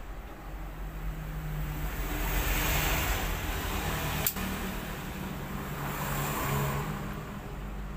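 Motor vehicle engine noise swelling and fading twice, as of traffic passing, over a steady low hum, with one sharp click about four seconds in.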